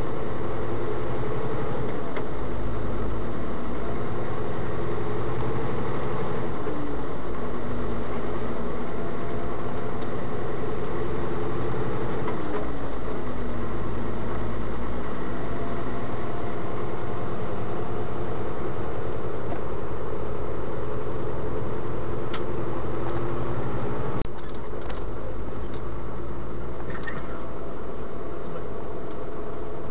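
Engine of the vehicle moving the giant grill, running steadily under way and heard from inside the cab with road noise. The engine pitch drifts up and down a little, and the sound drops slightly about three-quarters of the way through.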